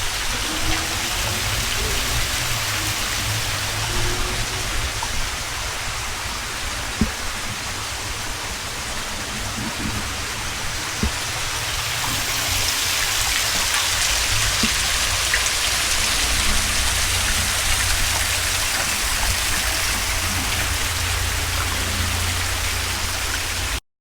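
Steady rush of a waterfall, a dense even hiss of falling water with a low rumble underneath, cutting off abruptly just before the end.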